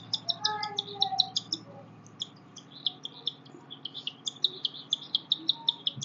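Young cockatiel giving quick, high, repeated chirps, several a second with a short break about two seconds in, while it takes formula from a syringe: the begging calls of a hand-fed chick.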